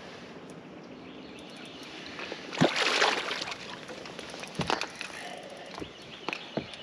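A hooked speckled trout splashing and thrashing at the surface about three seconds in, a short burst of water noise. A few sharp knocks follow in the last seconds.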